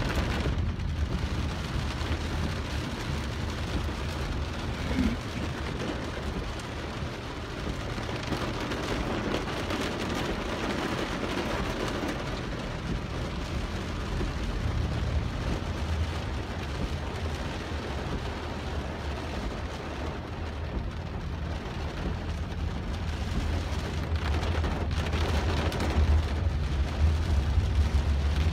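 Torrential rain hammering on a car's roof and windshield, heard from inside the cabin, over a steady low rumble. It grows louder near the end.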